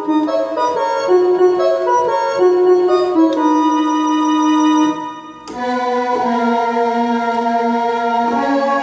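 Korg Triton Extreme synthesizer keyboard played with an organ-like voice, a melody of held notes. It breaks off briefly about five seconds in, then a long held chord sounds and shifts near the end.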